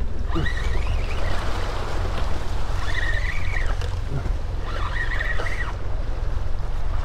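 Wind buffeting the microphone over a steady low rumble, with water lapping against a small boat while a spinning reel is cranked in. Two short high whines come through about three and five seconds in.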